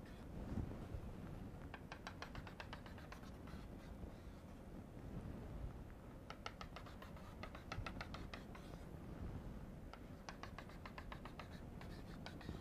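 Chalk tapping on a blackboard as dashed lines are drawn: three runs of rapid, faint ticks, each lasting about a second.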